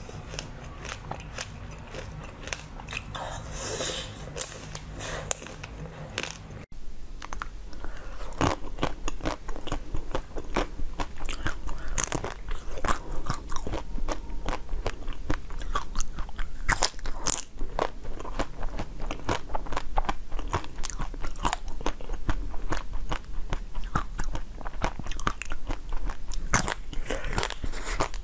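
Close-miked biting and chewing of frozen, chocolate-coated ice pieces: many sharp crunches and cracks. It is softer for the first few seconds, then becomes louder and denser.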